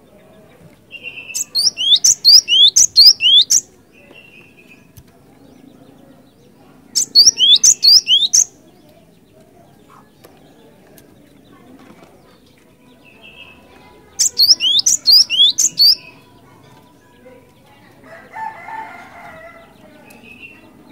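Cinereous tit (glatik batu) singing in three bursts of rapid, repeated, sharply falling high notes, each burst about two seconds long. Softer short calls come between the bursts, and a lower, softer sound comes near the end.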